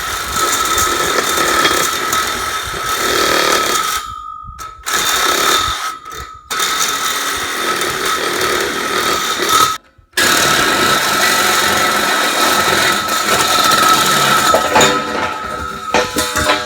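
Backhoe working close by: loud engine and machinery noise with a high, steady alarm tone, the backup alarm, sounding over it. The sound breaks off abruptly a few times.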